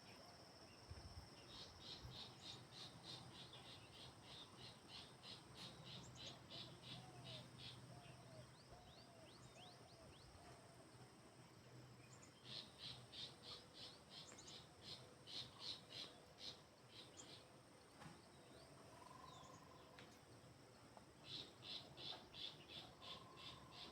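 Faint insect chorus: a steady high-pitched drone throughout, with a shrill pulsing call at about three or four pulses a second that comes in three bouts, starting about a second in, about halfway through, and near the end.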